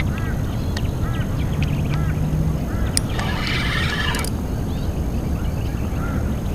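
Birds giving short, repeated calls, like waterfowl, over a steady low rumble. About three seconds in comes a rasping noise that lasts about a second.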